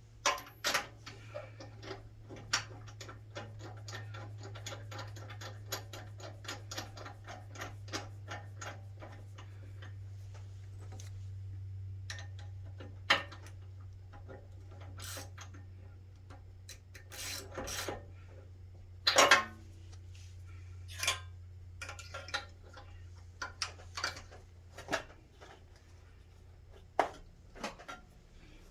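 Hand-tool work on a snowblower: a long run of fast, even clicks like a ratchet, then scattered metal clinks and knocks, one of them loud, over a low steady hum.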